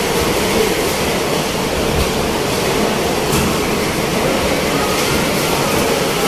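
Typhoon-force wind blowing hard and without let-up against a building's glass entrance, heard from inside the lobby as a constant loud rush.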